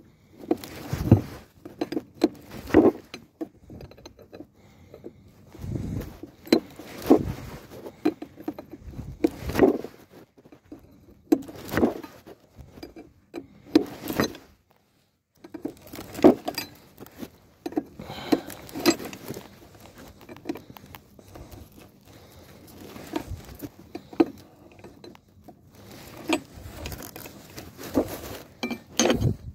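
Irregular metallic clinks and knocks of hand tools on steel, with short ringing, while the old air brake chamber is unbolted from a trailer's disc brake axle.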